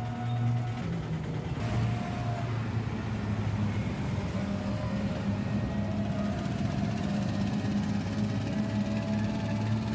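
Road noise from a moving vehicle in traffic, mixed with background music holding long, steady notes that change pitch every second or two.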